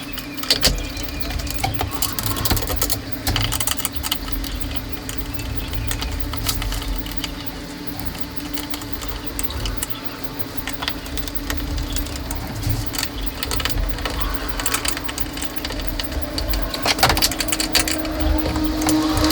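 Screws and locking nuts being fitted and tightened on a mount bracket, heard as irregular small metal clicks and rattles, over a steady low hum.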